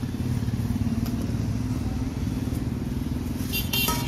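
Small motor vehicle engine idling with a steady low throb, and a brief high-pitched sound near the end.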